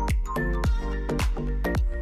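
Electronic background music with a steady kick-drum beat, about two beats a second, under sustained synth chords.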